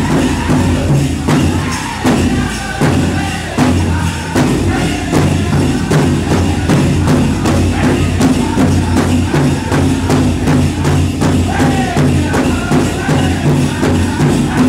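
Powwow drum group beating a big drum in a steady, even beat and singing, with a constant jingling of dancers' bells over it.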